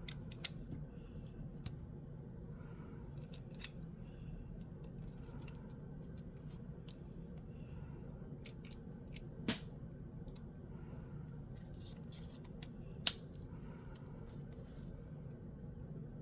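Small hard objects handled and moved about: scattered light clicks and rustles, with a sharper clack a little past halfway and another about three seconds later.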